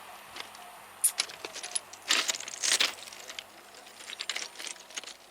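A run of irregular sharp clicks and clinks with a short rattling stretch, loudest about two to three seconds in.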